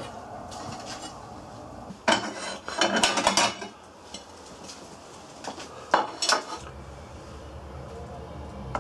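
Metal cutlery and cookware clattering and scraping in two bursts, one about two seconds in and a shorter one about six seconds in, with a few lone clinks between.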